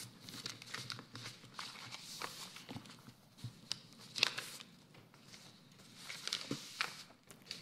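Sheets of paper rustling and being handled, with irregular small knocks and clicks; the loudest knock comes about four seconds in.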